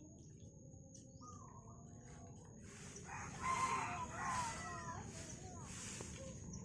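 A rooster crows once, about three and a half seconds in, a pitched call of a little over a second that bends in pitch.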